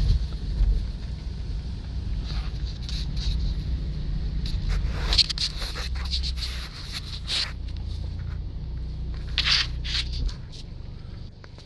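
Low rumble of a car's engine and cabin heard from inside the car, stopping abruptly about ten seconds in. Scattered short hissy scrapes sit on top of it.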